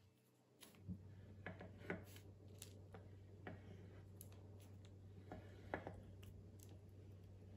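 A sharp knife slicing puff pastry into diagonal strips on a parchment-lined metal baking tray. It makes faint, short clicks and scrapes, about one or two a second, as each cut goes through, over a faint steady low hum.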